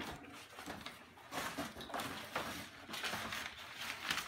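Plastic bags and paper packaging rustling and crinkling in irregular bursts as prizes are pulled out of cardboard boxes.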